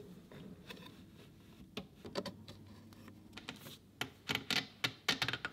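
Scattered sharp clicks and light knocks, bunched near the end, as a cabinet's bottom trim strip is pushed into place onto its 3D-printed spring brackets.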